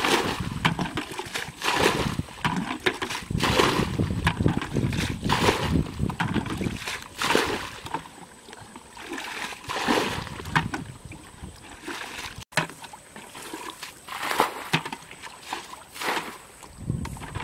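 A plastic bucket bailing muddy water out of a shallow ditch: repeated scoops and sloshing splashes as the water is thrown out, about every second or two.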